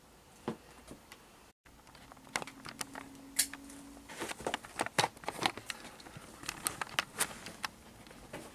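Irregular rustling, crackling and clicking of debris being moved and stepped through, sparse at first and busy from about two seconds in, with a brief drop-out near the start.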